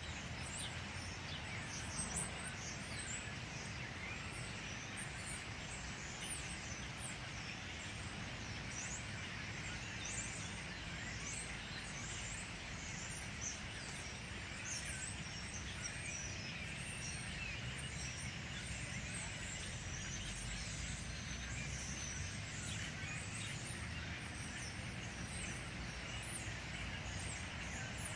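A large flock of birds calling all at once: many overlapping short, high chirps in a continuous chatter, over a steady low rumble.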